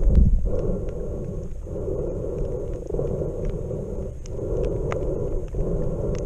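Muffled underwater sound picked up by a submerged camera: a low rushing wash of water that swells and dips about every second and a half, with a few scattered sharp clicks.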